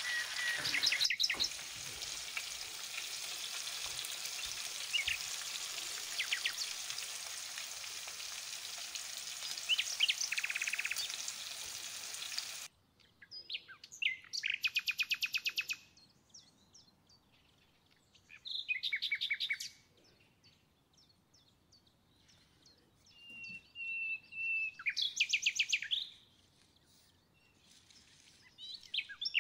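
A pan of lamb, potatoes and vegetables sizzling steadily as it fries, with small birds chirping over it. About halfway through the sizzling cuts off suddenly, leaving only birds singing short rapid trills with pauses between.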